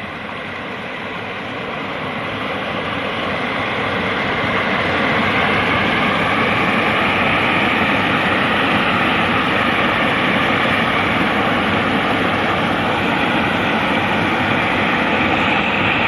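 Stream water rushing over a rocky ledge in a small cascade: a steady white-water rush that swells over the first few seconds, then holds.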